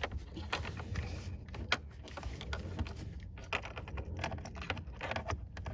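Irregular light clicks and taps of small hard objects being handled, over a low steady hum.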